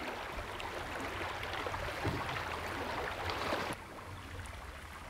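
Flowing river current, a steady rush of moving water; it drops a little quieter suddenly about three and a half seconds in.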